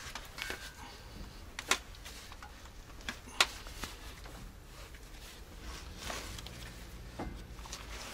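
Scattered sharp metal clicks and clinks of a hand wrench working a seized bolt on a truck's rear-axle final drive housing, the sharpest a little over three seconds in, over a low steady hum.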